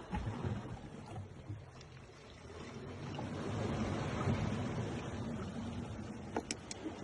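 Outdoor wind and sea-surf noise, a steady low rush that swells in the middle, with a few faint clicks near the end.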